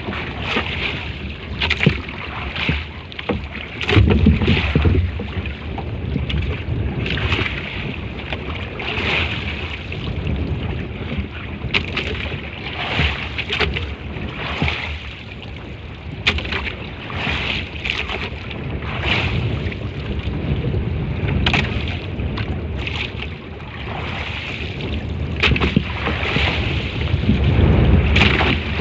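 Wind buffeting the microphone over water sloshing and splashing around a small boat at sea, with gusts of low rumble about four seconds in and again near the end.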